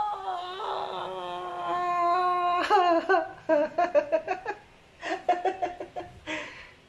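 A man's long, drawn-out mock cry of pain, held on one pitch for about three seconds, breaks into bursts of laughter.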